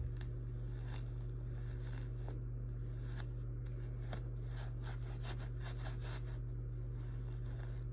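Faint scattered scrapes and clicks of hands and tools working at slime in carpet, over a steady low hum.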